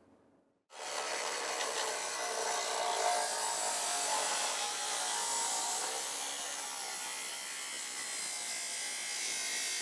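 Ryobi angle grinder's cutting disc slicing through a Colorbond steel fence rail: a steady, harsh grinding hiss that starts abruptly under a second in and holds level.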